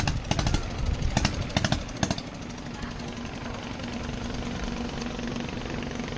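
A motor running steadily with a low hum, with a rapid rattling clatter during the first two seconds.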